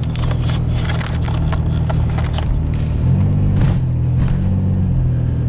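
Van engine and road noise heard from inside the cab while driving, a steady low drone whose pitch briefly rises and drops back about three seconds in.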